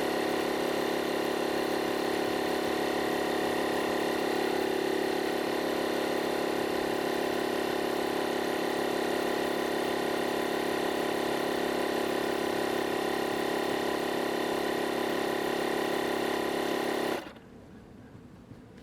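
Portable digital air compressor running steadily as it pumps up a car tyre, a constant motor drone with a strong hum. It cuts off suddenly near the end.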